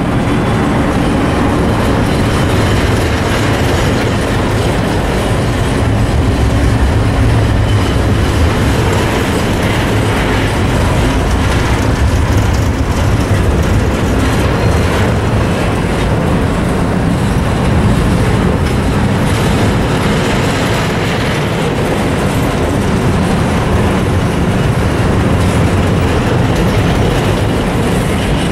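Amtrak passenger train approaching and passing close by: the steady drone of the GE Genesis diesel locomotive, then the bilevel Superliner cars rolling past on the rails.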